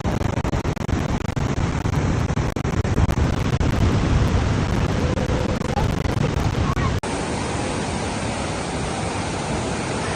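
Steady rush of falling water at Niagara Falls, with wind buffeting the microphone. About seven seconds in, the sound cuts to a smoother, steadier rush with less wind.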